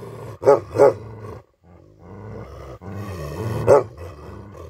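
Tibetan Mastiff barking with a deep voice: two barks in quick succession about half a second in, and one more near the end. A low, steady growl runs between the barks.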